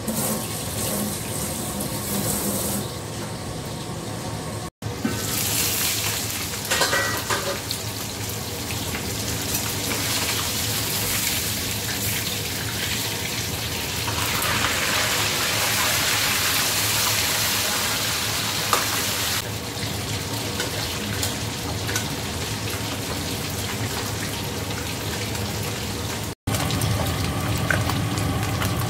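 Small whole fish frying in hot oil in a stainless steel wok: a steady sizzle, fuller in the middle stretch.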